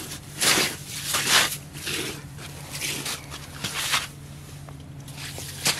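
Irregular crunching and swishing on packed snow, roughly one a second, as a freshly landed cusk (burbot) flops about and boots shuffle beside it.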